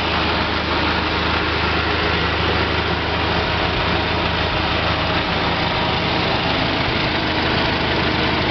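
1938 Viking Standard Twin garden tractor's two-cylinder engine idling steadily, running decent.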